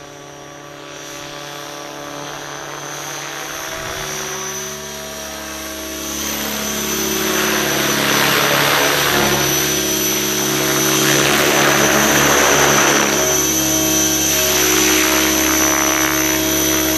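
Align T-Rex 600 electric RC helicopter coming down to land: the steady whine of its electric motor and the whoosh of the main rotor blades grow louder as it descends and nears.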